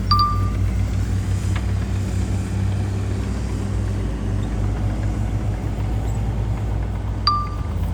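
Heavy diesel engine of earthmoving machinery running steadily with a low throb. Two short sharp clinks with a brief ring come at the very start and about seven seconds in.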